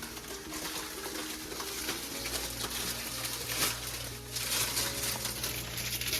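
Background music with a simple stepped melody, over a steady hiss of cooking noise with a few light clicks. A low steady hum comes in about two seconds in.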